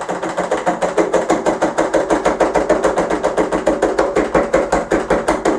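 A spoon rapidly tapping and tamping shikakai powder down through a small funnel into an empty bottle, a steady run of light knocks about six or seven a second.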